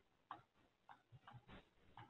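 Faint computer mouse clicks, about half a dozen short, irregular ticks, over near silence.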